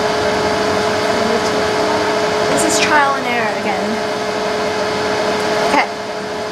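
ShopBot CNC router running with a steady whirring hum. About three seconds in a falling whine as its motors jog the head and slow down, then a click near six seconds after which the hum is a little quieter.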